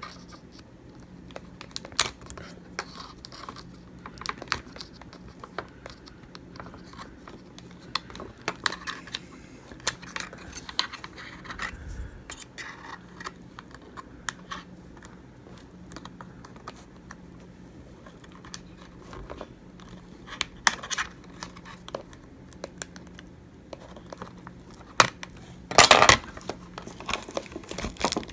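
Scattered small clicks, scrapes and crinkles of picking and prying at an iPhone 7 Plus battery stuck down by torn adhesive strips, with a louder scraping burst near the end.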